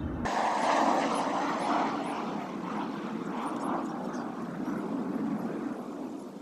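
Steady rushing drone of a distant engine, loudest about a second in and slowly fading away.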